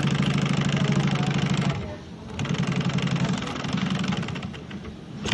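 Industrial sewing machine stitching through layered nylon, running in two bursts of about two seconds each with a short pause between them, then slowing and stopping near the end.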